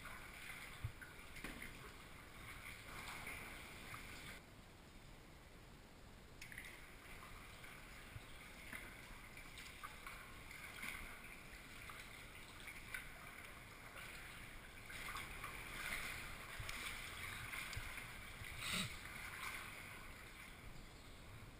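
Faint splashing and trickling of water from kayak paddle strokes, coming in patches with a short lull about five seconds in. A brief louder knock sounds near the end.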